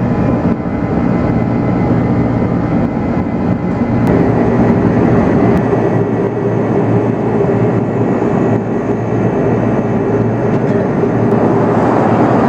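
Airbus A330-300 jet engines running with a loud, steady rumble and hum. About four seconds in, the sound grows a little louder and a new steady hum joins.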